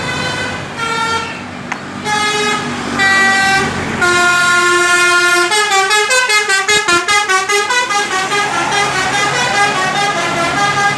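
An Indonesian bus's 'telolet' musical horn playing a tune: separate notes with short gaps for the first few seconds, then held notes, then a fast warbling trill of several tones at once, about four pulses a second.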